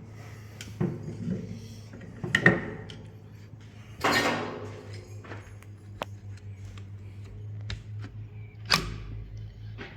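Engine parts and tools being handled during a teardown: scattered knocks and clicks, a brief scrape about four seconds in and a sharp knock near the end. A steady low hum runs underneath.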